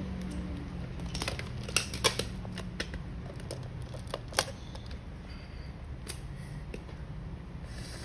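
Scattered sharp clicks and taps on hard plastic magnetic tiles, with a few louder ones about two seconds in and again a little past four seconds, over a steady low hum.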